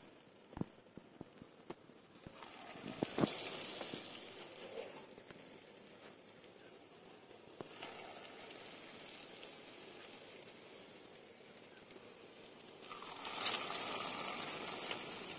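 Hot oil sizzling as dollops of potato-and-egg fritter batter are dropped in to deep-fry; the sizzle swells about two seconds in and again near the end, with a couple of light clicks.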